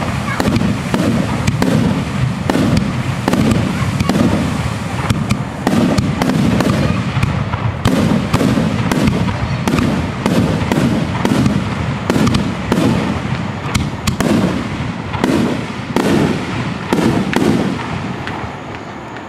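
Aerial firework shells bursting in rapid, overlapping bangs, with a rumbling echo rolling back from the surrounding mountains.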